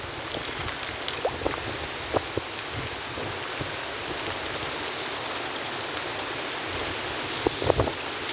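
Storm-surge seawater from a hurricane rushing and foaming across a flooded road, making a steady rushing hiss. A few low thumps come near the end.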